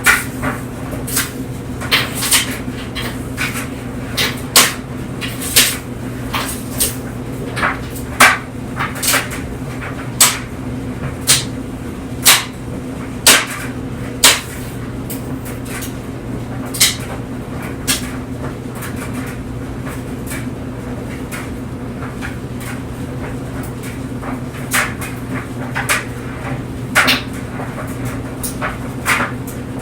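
Clothes dryer running with a steady hum as clothes tumble in the drum, with irregular sharp knocks, about one a second at first, sparser in the middle and coming back near the end.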